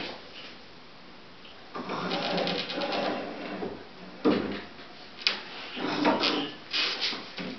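Wooden screen-printing frames handled in a wooden shelf rack: a rattling scrape lasting about a second and a half, then several sharp wooden knocks.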